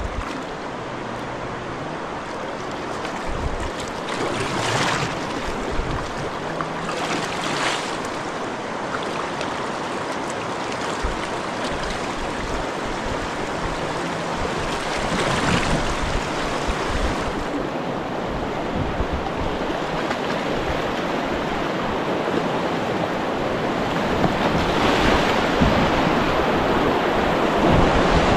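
Rushing river water, louder toward the end as the kayak runs into whitewater rapids, with a few kayak paddle splashes along the way.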